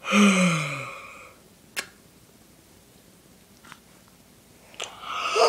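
A boy's loud yell, falling in pitch over about a second, followed by a few sharp clicks.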